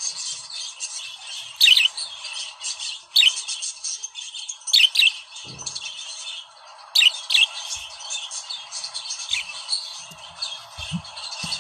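A pair of budgerigars warbling: a continuous high chatter broken by sharp, loud chirps every second or two.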